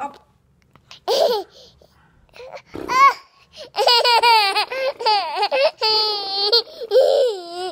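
A 20-month-old toddler laughing: a couple of short vocal sounds, then from about four seconds in a long stretch of high-pitched laughter in quick pulses.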